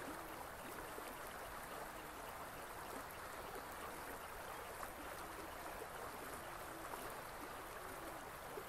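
Steady, faint rush of flowing water, an even hiss with no rhythm or pitch.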